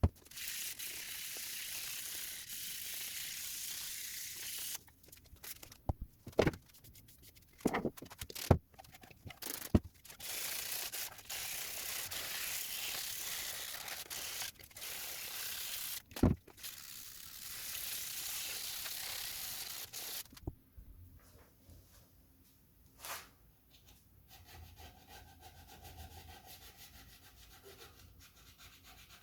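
Sandpaper sanding a 3D-printed bust's coated surface: long stretches of steady rubbing, broken by several sharp knocks around the middle. The sanding stops about two-thirds of the way in and it goes much quieter.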